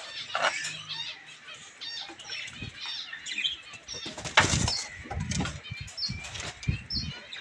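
Birds flapping their wings in a wire cage in short flurries about halfway through, amid short high chirps of small birds.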